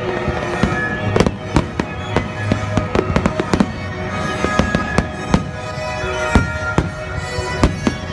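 Fireworks display: a rapid, irregular string of sharp bangs from bursting shells, over music played through loudspeakers.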